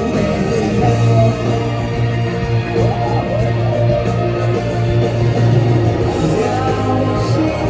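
Live rock band playing a song, with guitar prominent.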